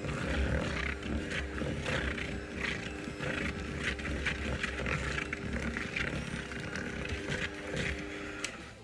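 Electric hand mixer running with a steady motor hum, its beaters churning and rattling through butter and powdered sugar being creamed into buttercream. It stops near the end.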